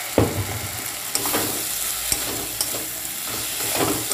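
Metal spatula stirring fried potato cubes through spice paste in a kadai, over a steady sizzle, with a few scraping strokes against the pan. The sharpest stroke comes about a quarter second in. The potatoes are being sautéed in the masala.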